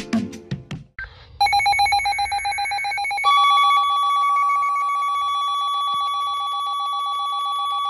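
Weather radio alert starting about a second and a half in: a rapid, evenly pulsing electronic beep. About two seconds later a single steady NOAA Weather Radio warning tone joins it and holds, the signal that a warning broadcast is about to follow.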